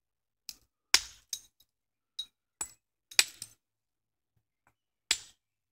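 Hammerstone striking a flint nodule in hard-hammer knapping. A series of sharp clinking knocks comes at uneven intervals, with a pause before one last strike near the end. The blows are knocking off flakes to rough out an edge on a hand axe.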